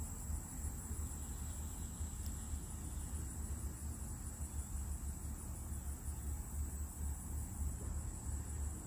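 Summer outdoor ambience: insects trilling in a steady high-pitched drone, over a low, uneven rumble of wind on the microphone.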